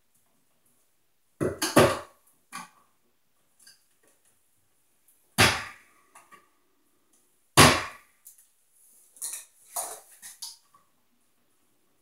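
Irregular sharp clicks and knocks of hand tools: wire strippers or pliers working the house wires at a plastic electrical switch box. A few of the knocks are loud.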